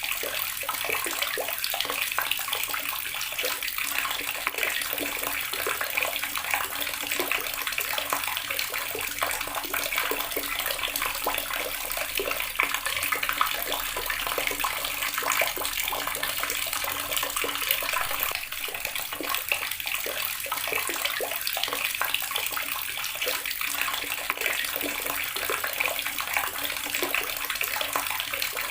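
Water tap running steadily, a continuous stream splashing into a basin or tub.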